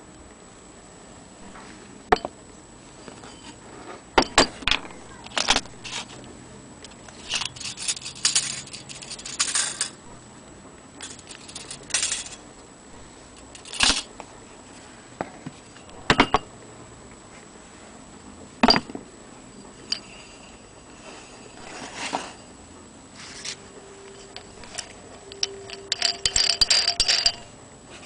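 Antique Willcox & Gibbs sewing-machine hand crank being handled and turned: scattered metal clicks, knocks and short rattles, with a busier stretch of clattering near the end.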